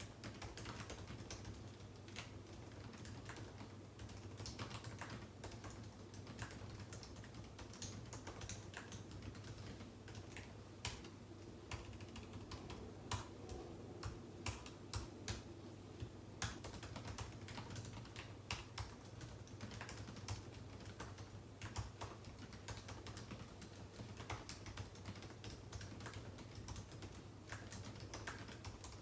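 Continuous typing on a computer keyboard: a quick, uneven run of key clicks, with a few louder keystrokes about halfway through. A low steady hum sits underneath.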